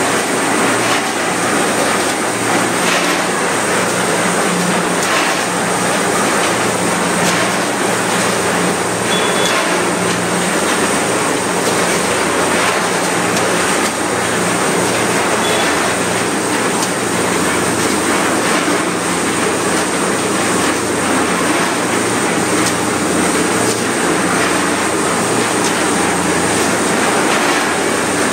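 Automated food-packaging line running, with a multihead weigher and packing machine: a loud, steady machine din with a pulsing low hum, a steady high whine and faint irregular clicks. Two brief faint beeps sound about six seconds apart.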